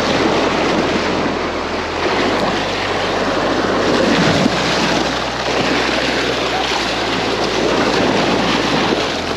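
Waves surging and splashing over jetty rocks right at the microphone, with water dashing over it; a steady churning wash with no clear pauses.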